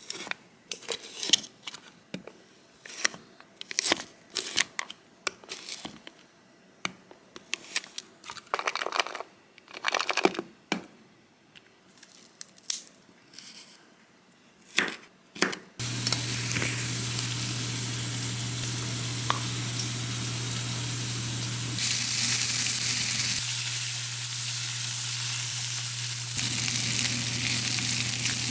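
Kitchen handling sounds, with scattered crinkles and light clicks of packaging and utensils. About halfway through, a steady sizzle of food frying in a pan starts, with a constant low hum under it.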